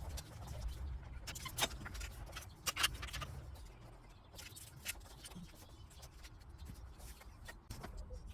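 Scattered light clicks and knocks of parts and tools being handled while the engine bay is taken apart, with a few sharper knocks about one and a half and three seconds in, over a low rumble.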